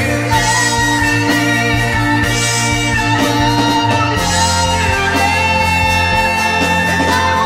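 Rock band playing together: electric and acoustic guitars, bass guitar, keyboards and drums, with a bright cymbal wash about every two seconds.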